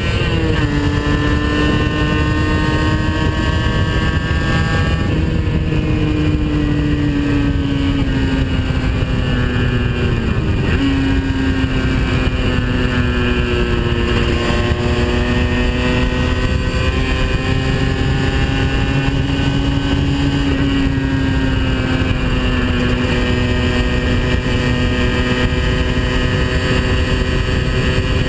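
Aprilia RS 50's 50 cc two-stroke single-cylinder engine running on the move, with wind rush. Its pitch drops sharply about half a second in and jumps back up about eleven seconds in, as gears change. In between it sags slowly, then rises and falls gently with the throttle.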